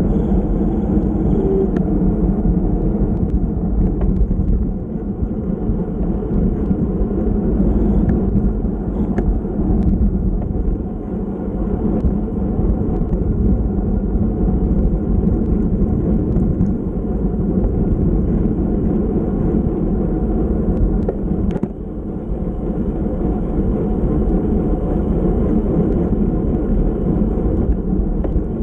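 Steady wind and road noise on a bicycle-mounted GoPro Hero Session, recorded while the bike is ridden at race speed.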